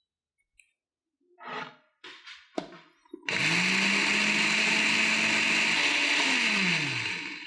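Electric kitchen blender running for about four seconds: its motor hum rises as it spins up, holds steady, then falls away as it winds down. A few short knocks and clatters of handling come before it starts.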